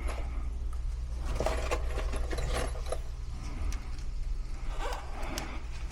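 Work on sheet-metal ductwork with a cordless drill at hand: scattered light clicks and knocks over a steady low hum.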